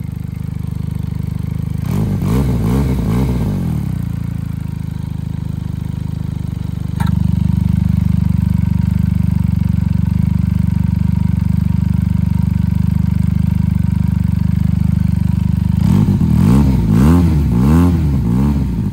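A 2022 Benelli 302S parallel-twin idles through an aftermarket slip-on muffler and is blipped in a quick burst of revs about two seconds in. After a sudden change about seven seconds in it idles louder, which fits the muffler's dB killer baffle having been removed. Near the end it is blipped several more times.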